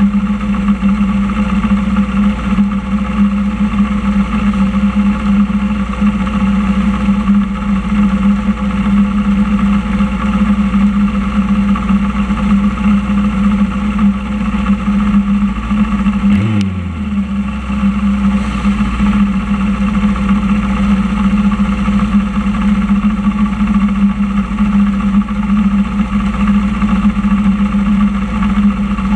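Motorcycle engine idling steadily at a constant pitch. Just past halfway there is a brief falling sweep in pitch, then the steady idle carries on.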